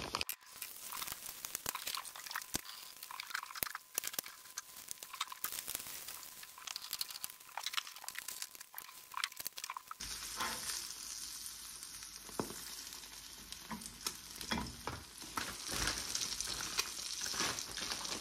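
Eggs frying in oil in a nonstick pan over a gas burner: a steady sizzle full of small crackles and pops, with the silicone spatula now and then touching the pan.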